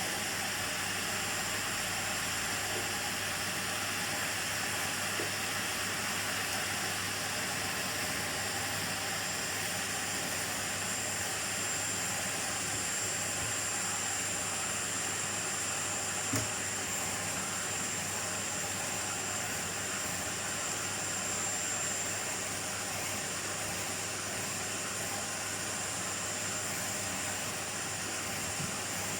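Miele vacuum cleaner running steadily: an even rushing hiss with a thin high whine over it and a low hum beneath, and a single brief click about sixteen seconds in.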